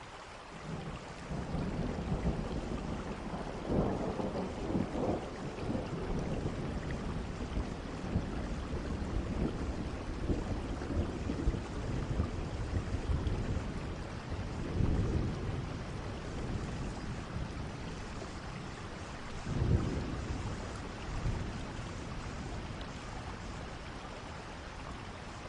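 Steady rain falling, with low rumbles of thunder that swell and fade about four, fifteen and twenty seconds in.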